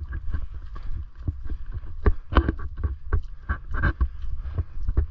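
Footsteps of people walking on a dirt hiking trail, irregular thumps and scuffs several to the second, heaviest in the middle stretch, over a steady low rumble of wind and handling on the microphone.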